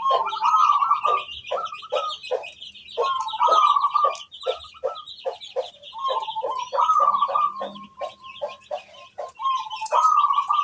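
Zebra dove (perkutut) cooing its song, a phrase repeated about every three seconds: a quick rolling burst of coos followed by a run of short, evenly spaced notes. Small birds chirp steadily at a higher pitch in the background.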